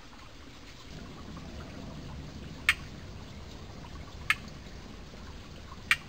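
Mountain stream flowing and trickling steadily, a little louder from about a second in. Three sharp clicks, about a second and a half apart, stand out above the water as the loudest sounds.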